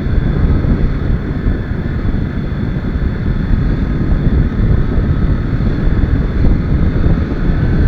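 Wind rushing over the microphone of a moving TVS Apache RR 310 motorcycle, with its 312 cc single-cylinder engine running steadily underneath.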